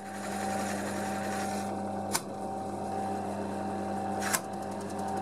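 Wood lathe running with a steady motor hum while a turning tool cuts a spinning spindle blank, broken by sharp knocks about two seconds in and again about four seconds in: the tool catching and digging into the wood. Another knock comes at the very end.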